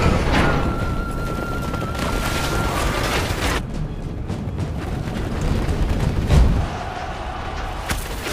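War-film soundtrack: music mixed with battle effects, with a high note held for about two seconds near the start and one heavy boom about six seconds in.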